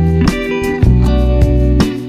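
Background music with a strong bass line, sustained chords changing every half second or so, and a few sharp drum hits.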